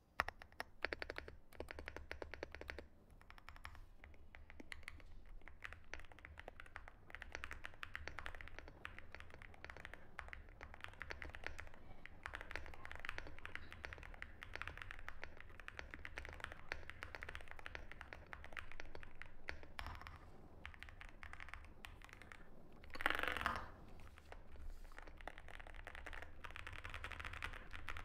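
Typing sound test on an Akko MU01 mechanical keyboard with a walnut wood case, gasket mount, Akko V3 Piano Pro switches and PBT MOA-profile keycaps: a steady, fast stream of keystroke clacks. There is a short lull about three seconds in and a brief louder burst of sound about twenty-three seconds in.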